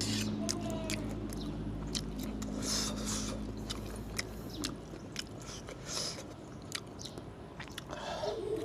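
A person slurping and chewing kuay jap rolled-rice-noodle soup, with sharp clicks and short wet noisy bursts. A steady low hum underneath fades out about halfway through.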